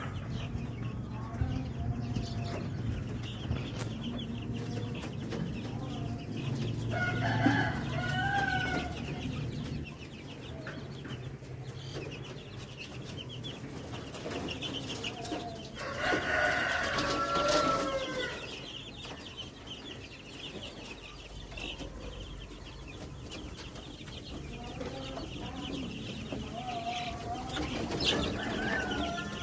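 A brood of two-week-old KUB chicks peeping and chirping in their brooder. Louder bouts of longer, pitched fowl calls come about a quarter of the way in, in the middle and near the end.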